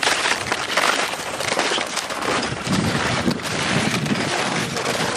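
Wind on the microphone: a steady, fairly loud noise without any tone.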